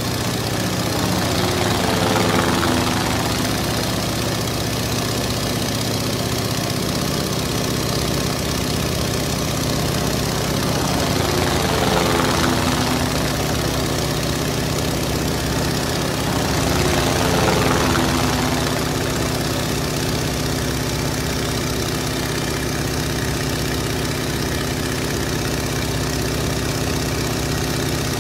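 Aircraft engine running steadily in flight, a low even hum that takes on a swirling, sweeping change in tone and swells slightly three times: about two, twelve and seventeen seconds in.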